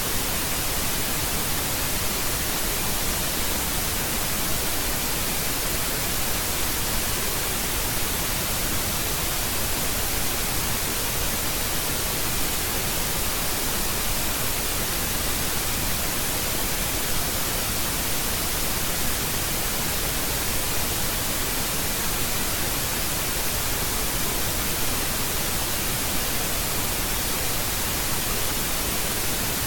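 Steady, fairly loud static hiss with no other sound: electrical noise on the recording's audio input.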